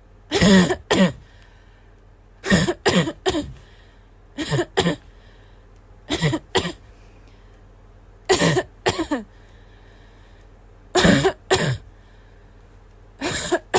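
A girl coughing in repeated bouts of two or three coughs, about every two seconds, each cough voiced and dropping in pitch.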